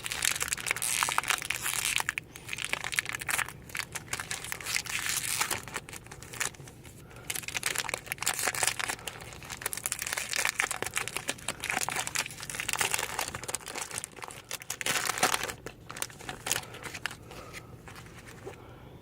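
Crinkling of plastic card packaging in irregular bursts as a set of Topps baseball cards is unwrapped and handled. It thins out about three seconds before the end.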